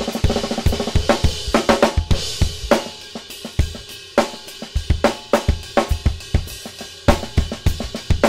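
Acoustic drum kit with Sabian cymbals played in a continuous groove: kick drum, snare and ringing cymbal strokes, easing off briefly about three seconds in before picking up again.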